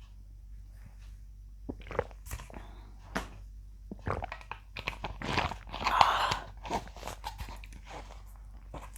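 A person gulping the last of a bottle of carbonated soda: a string of swallows, mouth clicks and small knocks, starting a little under two seconds in.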